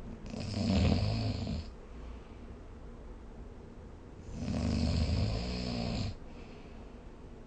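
Snoring: two long, rattling snores about four seconds apart, each lasting a second and a half to two seconds.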